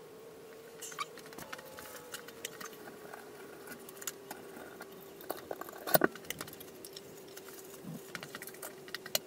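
Faint scattered clicks, taps and light rattles of small objects being handled, over a steady faint hum, with a louder clatter about six seconds in.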